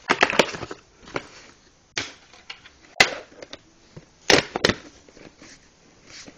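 Plastic VHS cassette and clamshell case being handled: a rustle at first, then a few separate sharp clicks and knocks, the loudest about three seconds in and two close together a little past four seconds.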